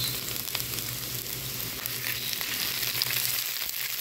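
Sliced onions frying in hot oil in a frying pan: a steady sizzle with scattered small crackles.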